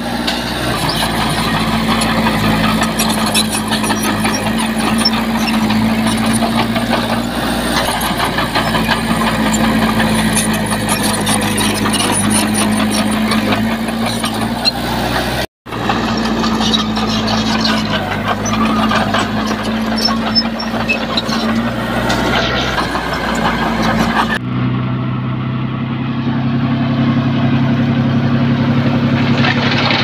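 Diesel engine of heavy earthmoving machinery running steadily under load, with scattered metallic clanks and rattles. The sound drops out for an instant about halfway, and changes character about three quarters of the way through.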